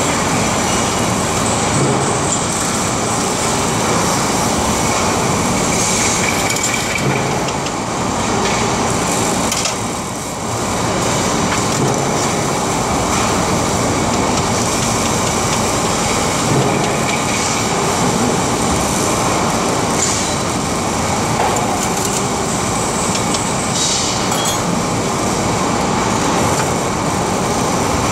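Loud, steady din of factory machinery: a dense mechanical rumble and clatter, with brief high hisses now and then.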